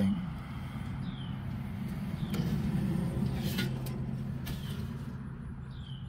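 A steady low hum that swells slightly mid-way and then eases off. Over it a bird gives a short, down-slurred chirp about once a second, with a few light clicks and rustles.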